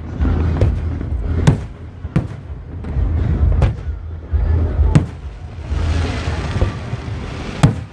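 Aerial fireworks bursting: about six sharp bangs at irregular intervals, the loudest near the end, over a steady low rumble.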